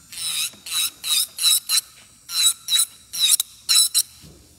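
Electric nail drill bit filing the surface of an acrylic nail in short, light strokes: a high scratchy rasp each time the spinning bit touches, about two to three strokes a second, stopping about four seconds in as the drill is lifted off.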